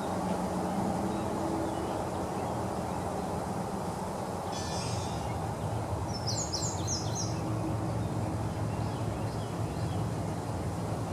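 Steady outdoor background noise with a low hum, and a quick run of high bird chirps about six seconds in.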